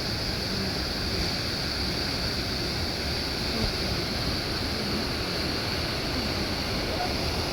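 River water rushing through grade 3–4 whitewater rapids, a steady, even rush.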